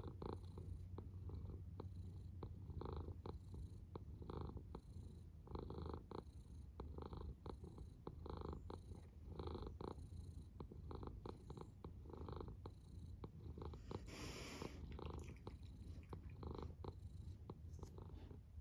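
Tabby cat purring steadily in close-up, the purr swelling and easing in a slow rhythm. A brief rustle cuts in about fourteen seconds in.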